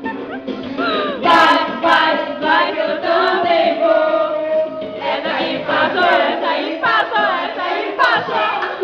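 A group of people singing and shouting together, many voices overlapping.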